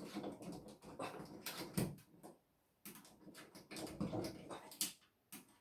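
A straightened wire coat hanger scraping and clicking inside a bathtub drain in irregular bursts as it is worked around to hook out clumped hair. There is a short pause about two seconds in.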